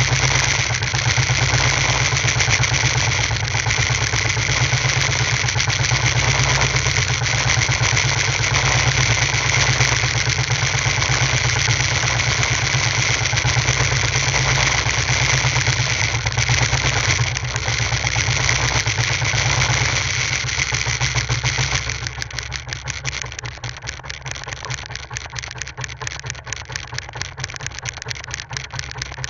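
A small fishing boat's engine running steadily, then throttled back about two-thirds of the way through to a quieter, lower idle with an audible putter.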